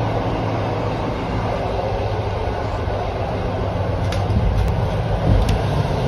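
Steady rumble and rush of a passenger train running at speed, heard inside the carriage: wheels on the rails and the car body rattling. A few light clicks come about four to five seconds in.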